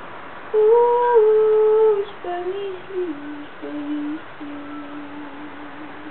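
A woman's voice singing a wordless tune: a loud held note starting about half a second in, then stepping down to a lower note that is held in short phrases and grows fainter.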